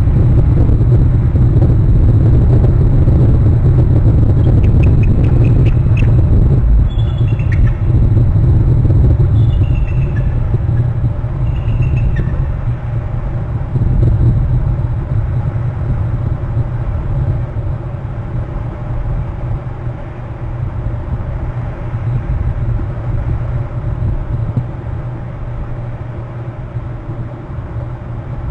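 Bald eagle calling: several groups of short, high piping notes, some falling in pitch, from about four to twelve seconds in. Underneath is a steady low rumble, the loudest sound, which eases off in the second half.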